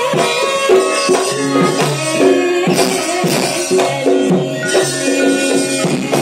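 Javanese gamelan ensemble playing, with struck metal instruments ringing many steady, overlapping notes in a running rhythm.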